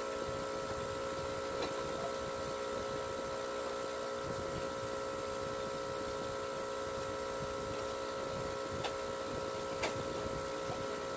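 Steady electric hum of a small motor, unchanging throughout, with a few faint clicks.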